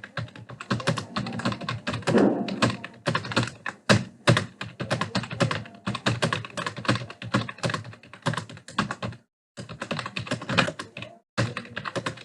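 Fast, continuous typing on a computer keyboard, with many rapid keystrokes a second. The typing stops briefly twice near the end.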